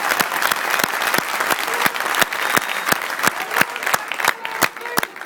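Crowd applauding: many hands clapping together, thinning to scattered claps near the end.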